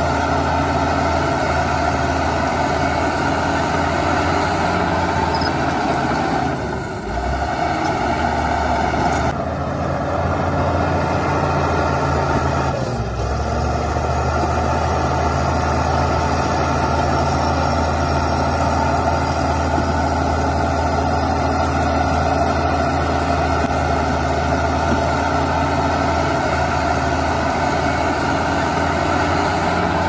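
Heavy diesel engine of earthmoving machinery running steadily under work. The engine note briefly dips twice, about seven and thirteen seconds in.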